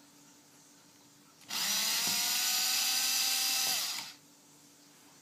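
Power drill-driver with a small Phillips bit running for about two and a half seconds, backing a screw out of a multimeter's back cover. It is a steady motor whine that winds up as it starts and winds down as it stops, about a second and a half in.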